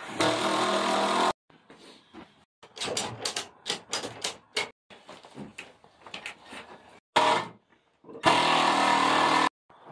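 A ratchet strap clicking as it is cranked tight to pull a leaning wall in. Short runs of a small motor start and stop abruptly, about three times.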